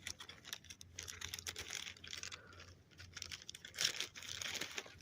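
A squirrel gnawing a peanut shell: rapid small clicks and crackles that come in two busier spells.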